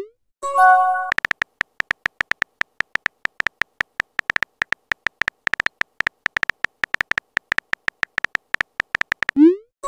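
Simulated phone-keyboard typing clicks from a texting-story app, rapid and irregular, tapping out a message for about eight seconds. A short tonal chime sounds about half a second in, and the typing ends in a rising whoosh of the message being sent.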